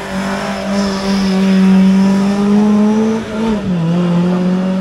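Race car engine running hard at high revs, a strong steady note that drops in pitch about three and a half seconds in and carries on at the lower note.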